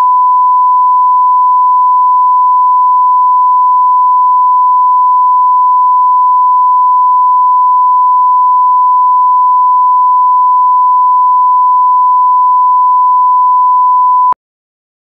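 Broadcast line-up test tone: a single steady 1 kHz sine tone at constant level, the audio reference that runs with colour bars. It cuts off abruptly shortly before the end.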